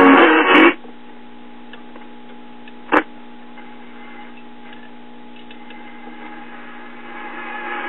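Emerson five-tube AM radio being tuned across the dial. A station plays loudly for a moment at the start, then gives way to a steady hum between stations, with one sharp click about three seconds in and noise building near the end. The tuning condenser is dirty, which the repairer calls very cruddy.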